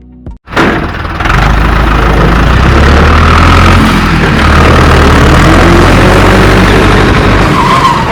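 An engine or motor running steadily and loudly, starting suddenly about half a second in and cutting off sharply at the end.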